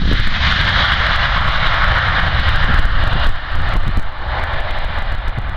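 Jet engines of a Wizz Air Airbus A320-family airliner running at high power as it speeds along the runway, a broad roar that fades from about three seconds in as it moves away. Strong wind buffets the microphone underneath.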